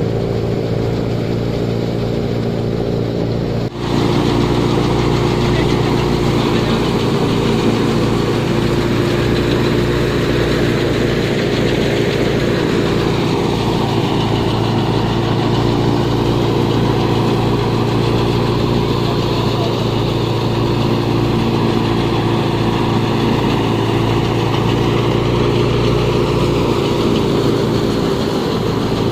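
Tractor-driven wheat thresher running steadily: a continuous engine hum and machine drone, with a brief dip about four seconds in.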